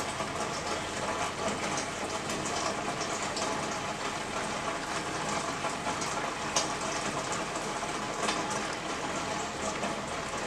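Steady rain falling: an even hiss made of many separate drop hits, a few of them louder than the rest.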